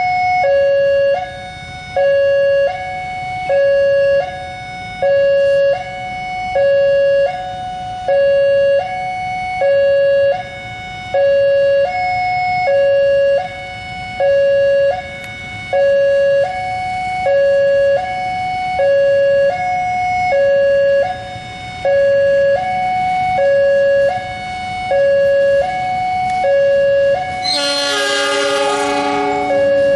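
Railway level-crossing warning alarm sounding, a two-tone electronic chime with high and low tones alternating about every half second. Near the end the approaching diesel locomotive gives a blast on its air horn lasting about a second and a half, followed by the low rumble of its engine.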